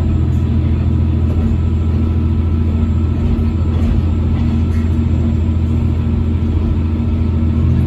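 KiHa 120 diesel railcar running along the line, its diesel engine giving a loud, steady low drone with a constant pitch, plus a thin steady whine above it.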